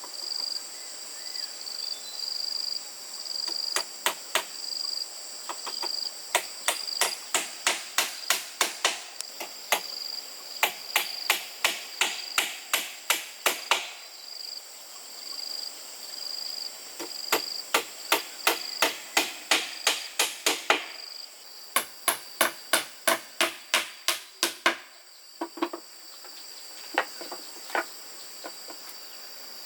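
Hammer driving nails, sharp blows about four a second in runs of several seconds with short pauses between them. Insects trill steadily in the background.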